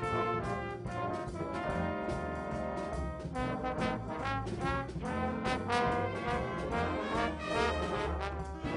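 A student band playing a holiday tune, led by brass instruments in many quick, full chords.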